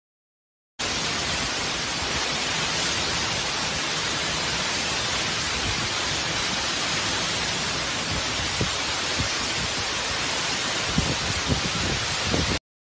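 Heavy tropical-storm rain and wind: a steady, even hiss that starts about a second in and cuts off abruptly just before the end, with a few faint low thumps near the end.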